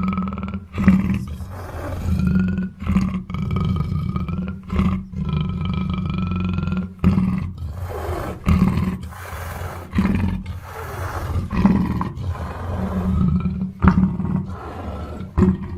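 Black panther growling and snarling in a string of rough calls. The first four are drawn out over a second or more with a whining tone riding on the growl. From about halfway they become shorter, harsher growls, roughly one a second.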